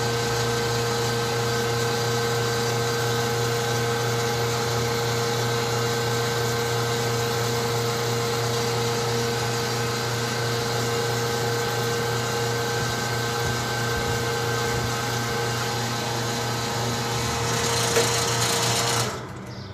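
Propane filling station pump running steadily with a hum and whine while filling a BBQ propane cylinder, with a short burst of hiss just before it cuts off suddenly near the end as the fill stops.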